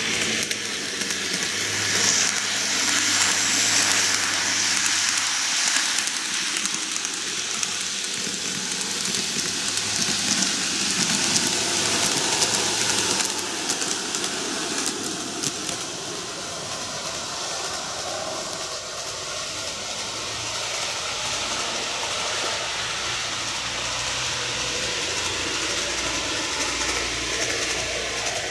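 N-gauge model train, a TOMIX JR 485 series 3000, running on plastic track: a steady whir from its motor and wheels, with a hiss and light clicking over the rail joints.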